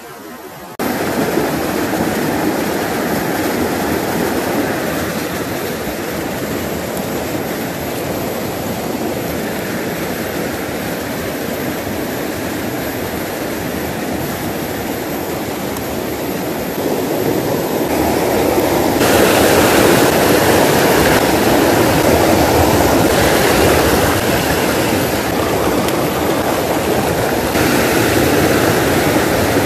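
Rushing water of a shallow rocky stream running over stones and small cascades, a steady noise that gets louder a little past halfway, with a few abrupt jumps in level.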